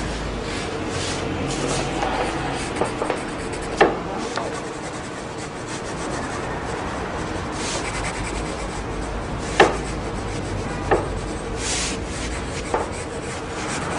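Pen nib scratching over paper in short drawing strokes, with a few sharp clicks.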